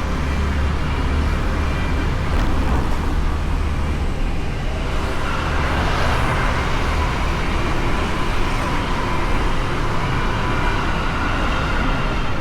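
Honda Beat 110 cc single-cylinder automatic scooter on the move in road traffic, heard through a bike-mounted action camera: steady wind and road rumble with the scooter's engine drone. A higher steady hum joins about five seconds in.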